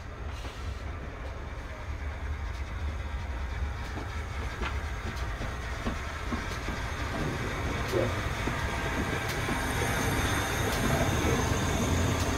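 GWR Castle class steam locomotive 7029 Clun Castle and its coaches moving slowly while shunting into a siding. A steady low rumble grows louder as the train draws nearer, with a few sharp clicks from the wheels crossing rail joints.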